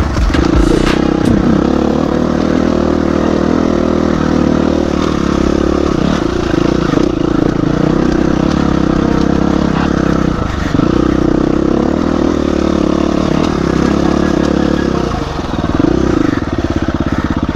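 Dirt bike engine running under load, its note dipping and picking up again several times as the throttle is worked.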